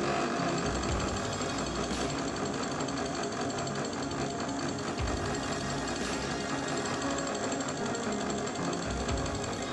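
Industrial high-speed lockstitch sewing machine switched on and running fast, a steady rapid chatter of needle and rotary hook that starts abruptly. It is a test run after resetting needle-bar height and hook timing to cure skipped stitches.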